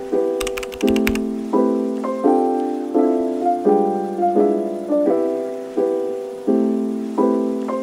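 Background music: soft piano chords struck about every three quarters of a second, each one dying away, with a short run of ticks near the start.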